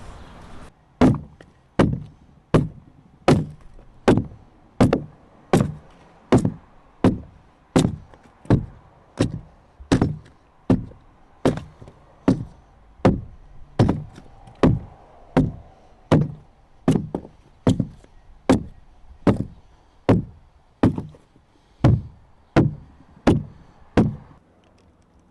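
Hand chopping tool striking a dugout canoe log in steady strokes, about one every three-quarters of a second, each a sharp knock into the wood; the strikes stop shortly before the end.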